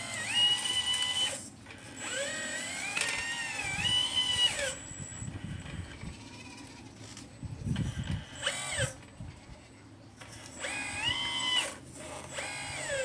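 The motor of a 1/12-scale Liebherr 954 RC model excavator whines in repeated bursts of one to three seconds each. The pitch rises as each movement starts, holds, and falls away as it stops. A short low rumble comes about eight seconds in.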